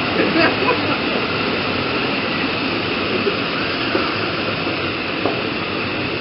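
Steady rush of water spilling from a pool's cascades and fountains, with faint distant children's shouts.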